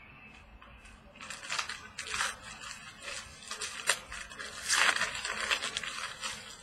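Plastic wrapping crinkling and tearing as a trading-card box topper is unwrapped and handled, in a run of rustling bursts that is loudest about five seconds in, with a sharp click near four seconds.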